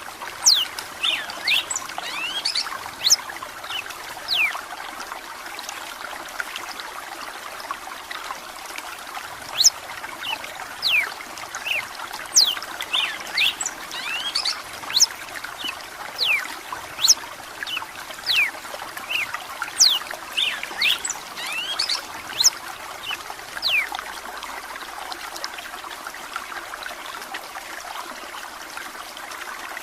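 Red-cowled cardinal (galo de campina) singing short, sharp whistled notes in quick clusters over a steady sound of running, trickling water.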